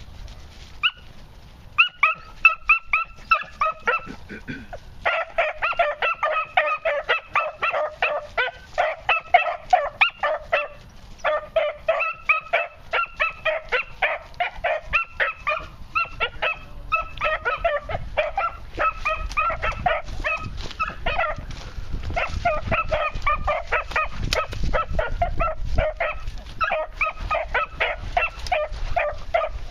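Beagle pups barking in quick, steady runs of about four or five barks a second, broken by short pauses. It is the repeated barking of young hounds working a scent trail.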